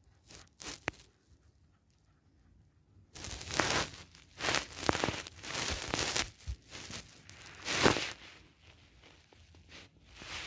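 Cloth and rug rustling and scraping in irregular bursts from about three seconds in, as a cat thrashes and rolls on a carpet trying to wriggle out of a sock pulled over its body.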